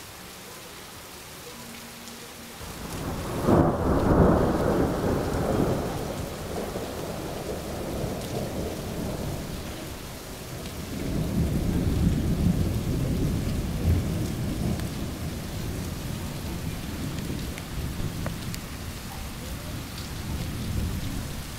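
Thunder over steady rain: a loud peal breaks suddenly about three seconds in and rolls away over several seconds, then a second, longer rumble builds about halfway through and slowly fades.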